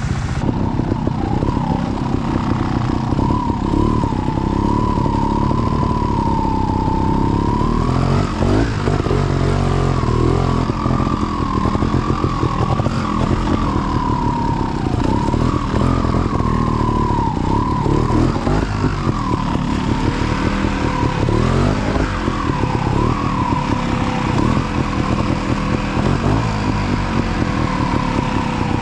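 Trials motorcycle engine running continuously, its pitch rising and falling as the throttle is worked while riding.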